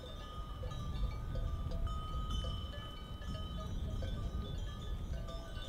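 Small bells worn by a grazing flock of goats clinking and ringing irregularly, several pitches overlapping, over a low rumble.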